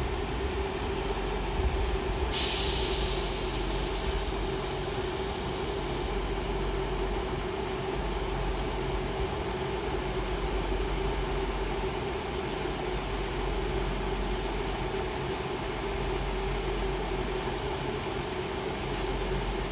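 Class 158 diesel multiple unit's engines running with a steady hum and low rumble as the two-car train creeps slowly into the platform. A loud high hiss starts about two seconds in and lasts about four seconds.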